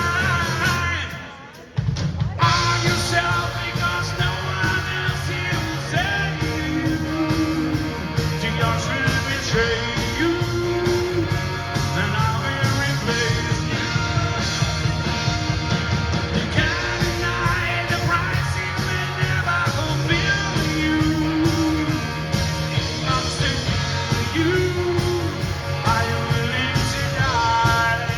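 Live rock band playing at full volume: drums, bass and a melodic lead line. Shortly after the start the music falls away for under a second, then the full band crashes back in.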